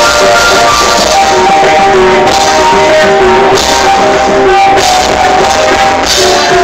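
Live busking music, guitar to the fore, with held sung or played notes over a steady accompaniment.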